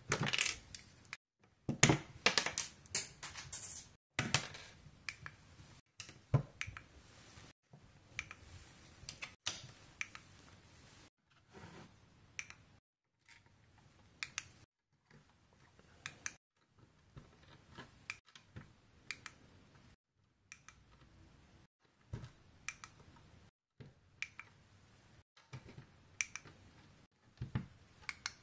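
LEGO plastic tiles and plates being pressed onto a baseplate: a run of irregular small clicks and snaps, with a louder, denser clatter of plastic pieces about two seconds in.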